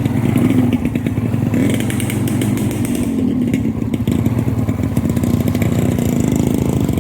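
Motorcycle engine running steadily while being ridden along a road.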